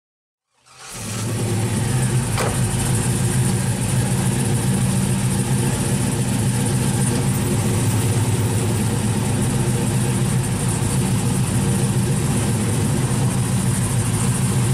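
The supercharged engine of a 1969 Camaro pro-touring car idling steadily through its exhaust, fading in a little under a second in.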